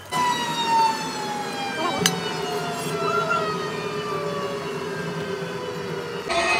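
A machine's motor whining as it winds down, the pitch falling slowly and steadily, with one sharp knock about two seconds in.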